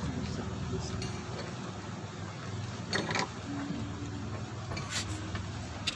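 Clutch bell of a Honda Vario 125's CVT being pulled off the driven pulley shaft by hand: a few light metal clinks, about three and five seconds in, over a low steady hum.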